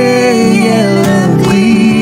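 Worship music: a woman singing long held notes that glide up and down between pitches, over guitar accompaniment.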